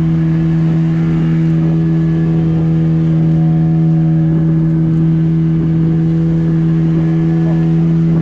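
Fishing boat's outboard motor running under way at a steady, unchanging speed.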